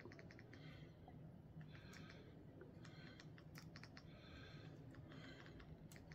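Near silence with soft, scattered clicks of buttons being pressed in small runs, as a menu is stepped through.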